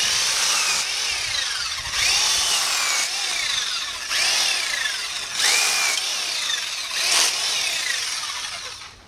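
Black & Decker Alligator electric lopper running its small chainsaw chain through tree limbs, one cut after another. The motor's pitch sags as the chain bites into each limb and climbs again as it cuts free. It winds down near the end.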